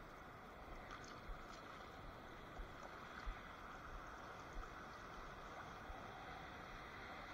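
Faint, steady wash of water at the shoreline, with occasional soft low thumps of wind on the microphone.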